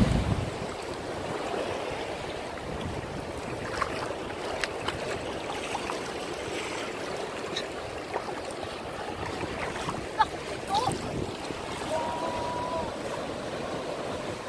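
Shallow sea water washing and sloshing over a rocky reef flat, with surf breaking beyond it: a steady wash with scattered small splashes and clicks.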